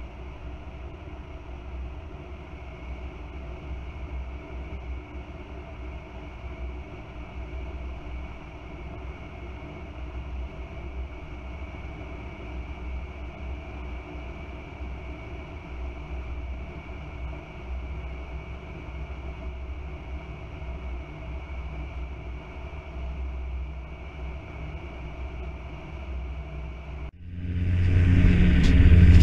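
Air-Cam light aircraft's engines droning steadily in flight, a level low hum with a few fixed tones. Near the end it cuts abruptly to a much louder engine drone with wind rushing over the microphone.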